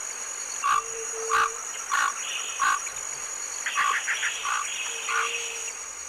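Comb duck calling: a series of about seven short calls, roughly one every two-thirds of a second, with a quick run of rapid clicks about four seconds in. A steady high-pitched whine runs underneath.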